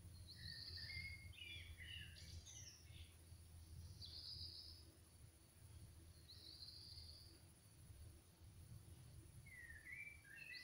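Faint birdsong: a few short chirping phrases, a second or two apart, over a steady low hum.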